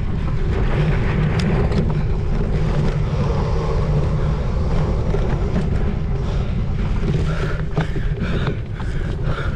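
Wind buffeting the microphone of a bike-mounted or rider-worn camera during a cyclocross race, a steady heavy rumble, with scattered knocks from the bike running over rough ground.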